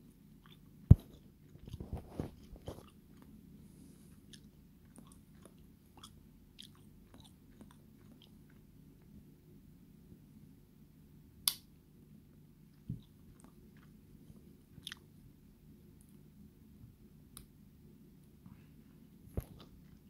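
Sharp clicks and small scraping and rubbing noises of a 1950s–60s Ulster Boy Scout pocket knife being handled, its slip-joint blades and tools worked open and shut. The loudest click comes about a second in and another near the middle, with lighter ticks and a short patch of rubbing on cloth in between.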